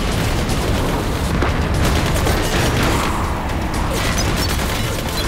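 Dramatised battle sound effects: continuous heavy gunfire and booming explosions, mixed with dramatic music.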